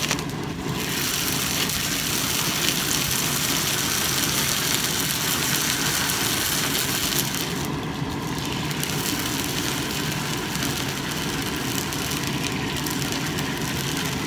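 Red-hot leaf-spring steel axe head quenched edge-first in preheated oil: a steady loud hissing sizzle as the oil boils against the steel and flares into flame. The hiss drops out briefly about eight seconds in when the head is lifted out, then resumes as it goes back in.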